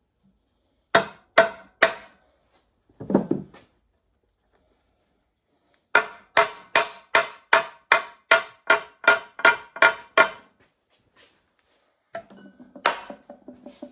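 Hammer strikes driving the countershaft's shaft home into a Warner Bearing T9 transmission case: three sharp metal-on-metal blows that ring briefly, then about a dozen quicker blows at between two and three a second, and a metallic rattle near the end.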